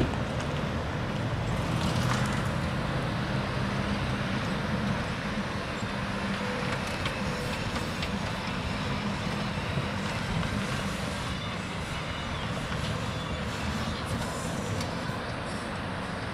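Road traffic: cars driving past one after another, a steady tyre and engine noise with a low hum that is strongest in the first half.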